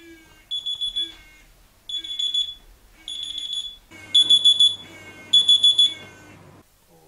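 Smartphone alarm beeping: groups of four quick high-pitched beeps about once a second, louder in the last few seconds, then cut off near the end as a hand reaches over to switch it off.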